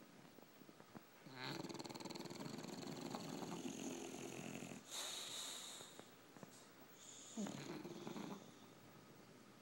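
English bulldog snoring in its sleep: a long rattling snore starting about a second and a half in, a breathy hiss, then a shorter rattling snore near the end.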